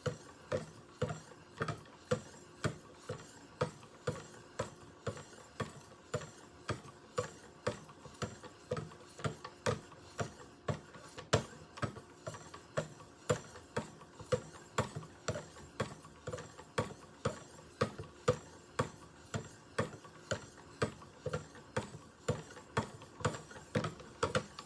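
Fine 2200-grit diamond stones on a guided-rod sharpening system stroking along the steel edge of a Spyderco Roc Salt blade, evenly, about two strokes a second, alternating sides. Each light pass ends in a short tick. At this fine grit the stones barely remove metal.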